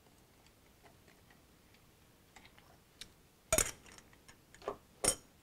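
A lidded tumbler of ice being handled: a few faint ticks, then three sharper clicks and clinks of lid, glass and ice in the second half.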